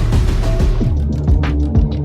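Electronic background music; a steady beat of low kicks and snare-like hits comes in about halfway through.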